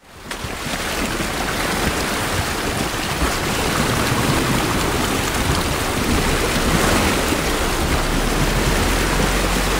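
Water splashing and rushing around an off-road vehicle's tyre as it fords a shallow, rocky creek: a loud, steady wash of spray that comes in suddenly at the start.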